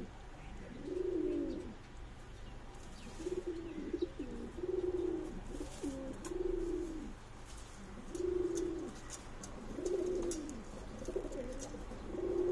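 Domestic pigeons cooing: a run of low coos, about one a second, through the whole stretch.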